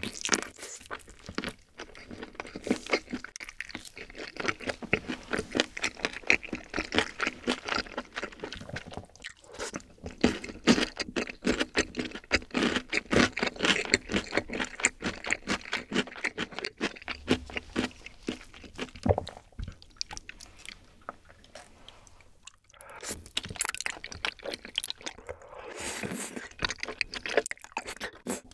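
A person chewing and biting into grilled chicken, with close, irregular wet mouth clicks. After a short lull near the end, a spoonful of creamy rosé tteokbokki sauce with noodles is slurped.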